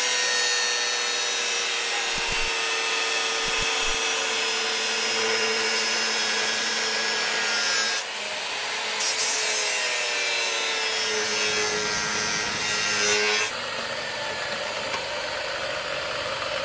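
Makita angle grinder cutting into the steel of an old chainsaw guide bar with an abrasive disc: a steady motor whine over a harsh grinding hiss. The grinding breaks off sharply about halfway, resumes, then stops near the end, leaving a quieter hiss.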